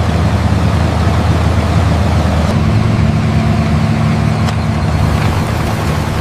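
Tractor engine running steadily, with a low drone that steps up slightly in pitch about two and a half seconds in.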